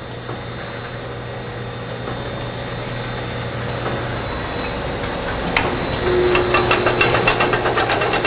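Four-head cheese depositor cycling: a steady machine hum that slowly builds, a sharp click about five and a half seconds in, then rapid repeated clicking near the end.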